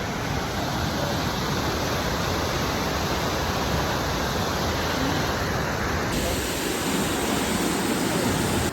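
Waterfall pouring, a steady, even rush of water.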